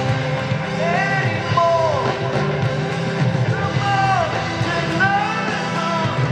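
Live rock band playing in a large arena, heard from the audience: a full band with steady low end under a high melody whose notes slide up and down.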